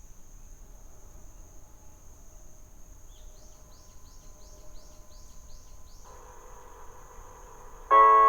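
Evening ambience with a steady high insect trill and a run of about seven quick downward chirps. About six seconds in, the outdoor disaster-prevention public-address loudspeakers switch on with a hiss. Near the end, the city's loud electronic 6 pm chime melody begins through them.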